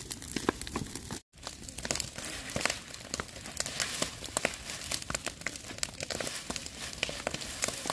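Dry grass and stalks crackling and rustling as they are raked and dragged with a long wooden pole, amid small burning grass fires: a dense run of sharp crackles and snaps. The sound breaks off for an instant just over a second in.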